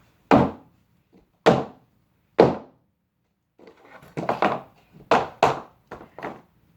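Hammer blows on a cardboard box: three heavy thuds about a second apart, then a quicker run of about six more hits.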